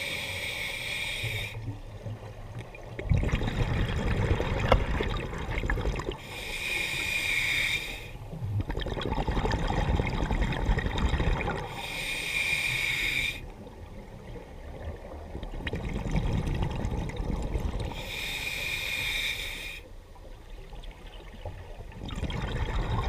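Scuba diver breathing underwater through a regulator. Each inhale brings a hiss from the demand valve, followed by a bubbling rumble as the breath is exhaled. The cycle repeats about every five to six seconds, with inhales near the start, at about six, twelve and eighteen seconds.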